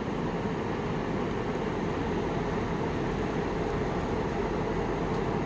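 Steady whoosh of grow-tent ventilation fans running, with a low hum underneath.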